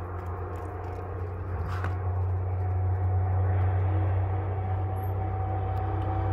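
A steady low motor hum with a faint higher whine over it, a little louder from about halfway.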